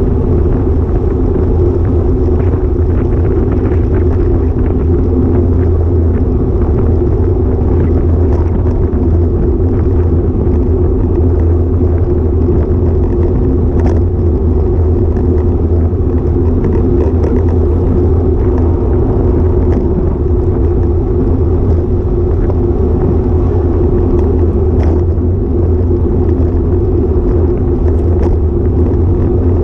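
Steady low rumble of a road bike ride picked up by a GoPro action camera riding on the bike: road and tyre vibration with wind on the microphone, and a few faint ticks scattered through.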